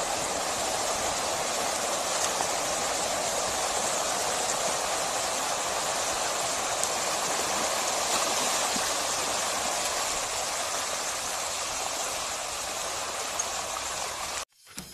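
Steady rushing splash of a large school of mullet thrashing at the surface in shallow water along the shore, a continuous rain-like hiss of many small splashes. It cuts off abruptly near the end.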